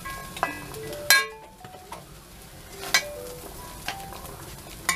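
Light background music of short notes stepping between pitches, over the faint sizzle of green peas frying in oil in a pan, with a few sharp clicks.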